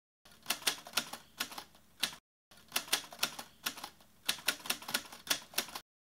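Typewriter keys striking the paper on the platen in a quick irregular run of sharp clacks, about three or four a second, with a brief break about two seconds in.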